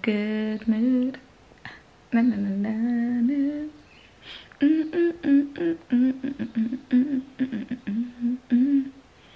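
A woman humming a tune in three phrases with short pauses between them, the last a run of short notes.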